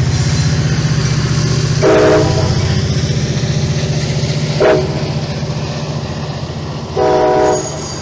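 Passenger train passing close by, with a steady, pulsing low rumble from the locomotive and wheels. The horn sounds three times: a longer blast, a very short one, then another longer blast.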